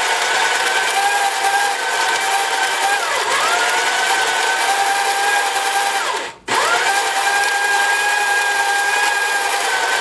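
Electric burr coffee grinder motor running as it grinds coffee into an espresso portafilter: a steady whine. About three seconds in, the pitch sags and picks back up. Just after six seconds the grinder cuts out for a moment and starts again.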